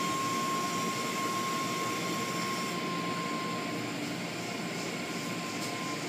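Automatic tunnel car wash heard from inside the car: cloth curtains and brushes sweeping over the body with water spray and machinery, a steady wash of noise. A thin steady high tone runs through it and stops near the end.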